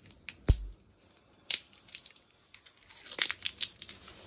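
Handling noise from batteries and plastic packaging: crinkling and light clicks, with one sharp thump about half a second in and a quick run of clicks near the end.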